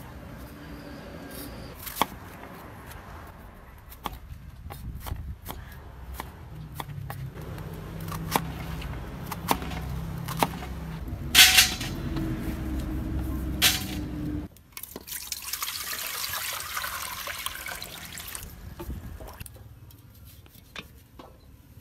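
A kitchen knife chopping a vegetable stem on a wooden chopping board, with scattered sharp knocks. About two-thirds of the way through comes several seconds of hissing, splashing water at a metal pot on a wood-fire stove.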